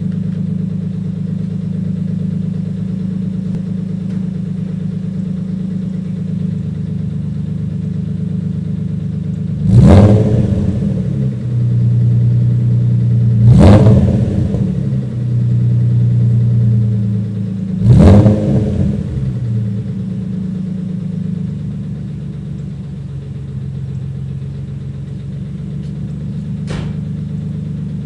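Nissan 300ZX's 3.0-litre V6 idling with a lifter tick, blipped in three quick revs a few seconds apart, each rising sharply and dropping back to idle. A single short click sounds near the end.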